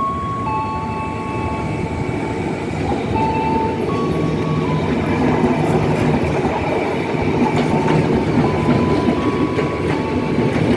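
Airport-line electric multiple unit rolling slowly past on the near track, its wheels rumbling on the rails and growing louder. Over the rumble, steady whining tones jump between pitches.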